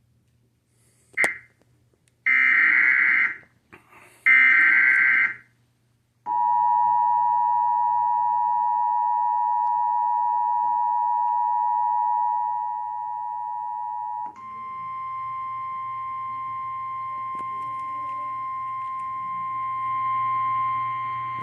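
Emergency Alert System alert on cable TV: a click, then two harsh, screechy data bursts of about a second each (the SAME header), then the two-pitch attention signal held steady for about eight seconds. It switches to a single, slightly higher, quieter steady tone for about eight more seconds, ahead of the warning's voice message.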